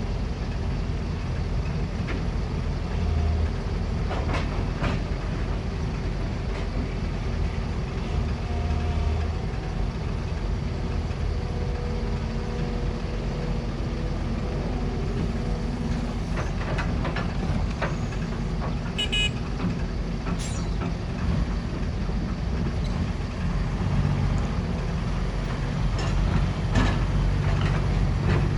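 Diesel engines of an excavator and dump trucks running steadily under load, with occasional metallic clanks and a brief high squeal about two-thirds of the way through.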